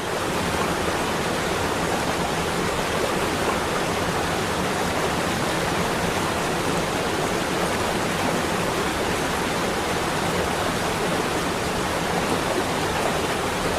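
Rushing water, a steady even rush with no change in level.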